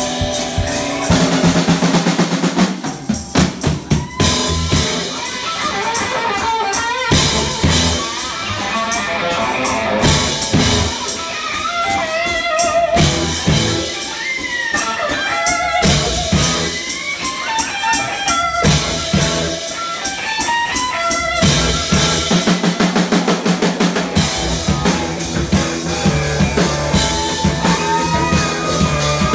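Live rock band playing: a drum kit and bass keep a steady beat under an electric guitar that carries a melodic lead with bending, wavering notes.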